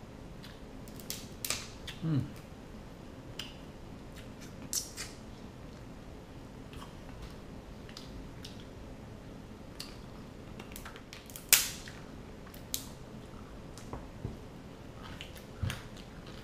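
Steamed red king crab shell being cracked and snapped apart by hand: scattered sharp cracks and clicks, the loudest a little past halfway.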